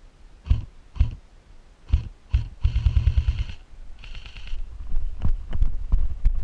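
Airsoft electric gun firing: a few single shots, then a short full-auto burst with the gearbox whining at roughly ten rounds a second. A fainter whining burst follows, then scattered clicks and knocks.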